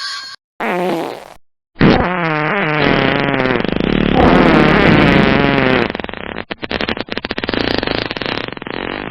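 A run of edited fart sound effects: two short ones, then a long, loud one that wavers in pitch and breaks into a rapid sputter about six seconds in, with another short one starting near the end.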